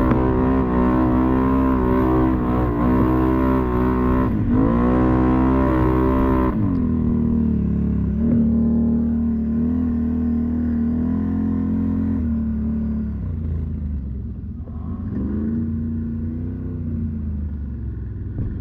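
ATV engine running under throttle: the revs dip and climb again about four seconds in, then settle to a steadier, lower drone with small rises and falls.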